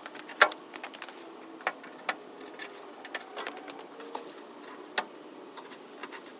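Scattered light clicks and knocks from hand work in a garage, about a dozen at irregular spacing, the loudest about half a second in and near five seconds, over a faint steady hum.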